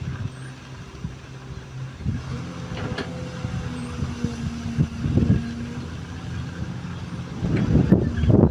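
XCMG XE215C hydraulic excavator's diesel engine running steadily under changing load, with a couple of sharp knocks midway and louder, rougher working noise near the end.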